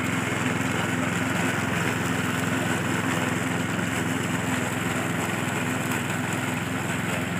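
Petrol walk-behind rotary lawn mower running steadily under load as it is pushed through grass, the blade cutting.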